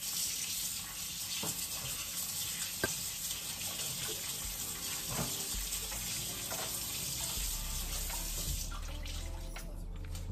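Kitchen tap running into a sink, with a few light knocks at the sink. The water shuts off about a second and a half before the end.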